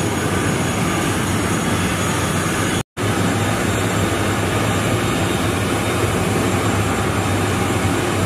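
ATR 72 turboprop engine running steadily at idle, a loud even drone with a steady low hum and a faint high whine, cut off for a split second about three seconds in.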